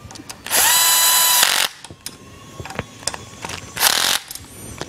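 Powered screwdriver motor whirring for about a second as it drives an end-cap screw into the exhaust muffler. Its pitch rises quickly, then holds steady. Light clicks and a short noisy burst of tool handling follow.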